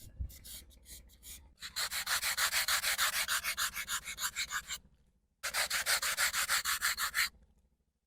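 Sandpaper rubbed rapidly back and forth on the edge of a polystyrene foam rudder, tapering its leading edge. It comes in two spells of quick, even strokes, about eight a second, with a short pause between them.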